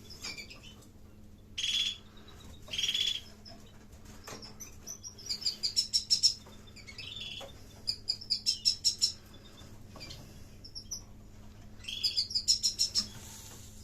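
Domestic canaries calling and singing: two short, clear high chirps in the first few seconds, then three bursts of rapid trilled song at about eight notes a second.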